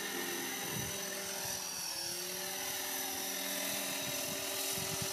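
Blade 450 electric RC helicopter in flight: the steady high whine of its brushless motor and gears with the rotor's hum. The pitch dips briefly and then climbs back about two seconds in.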